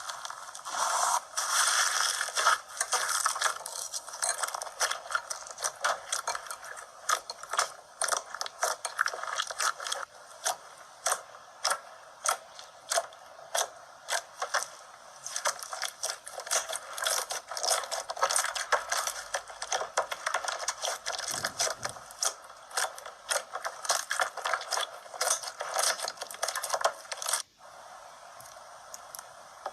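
Slime being squeezed and kneaded, giving a dense run of sharp clicks and crackles that breaks off near the end.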